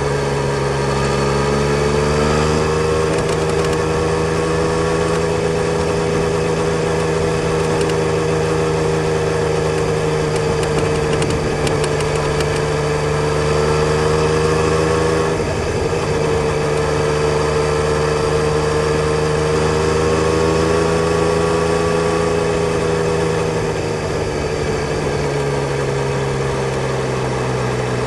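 Yamaha Tracer 900 GT's three-cylinder engine running at a steady note over a continuous hiss. The pitch rises slightly about two seconds in, dips briefly about halfway through, then eases lower near the end.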